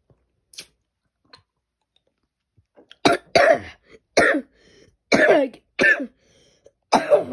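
A person's fit of coughing: about half a dozen harsh coughs in quick succession, starting about three seconds in after a quiet stretch. The person blames the coughing on allergies.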